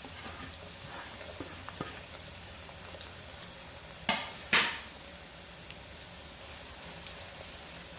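Sliced onions frying in oil in a steel kadai, a faint steady sizzle. There are two short clatters a little after the middle.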